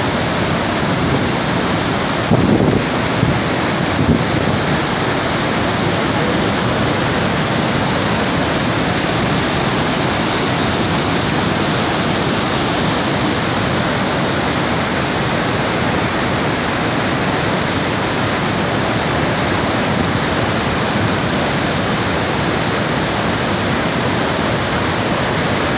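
Waterfall pouring through a rocky gorge into churning whitewater: a steady, even rushing roar of falling water. A few brief louder bumps come about two to four seconds in.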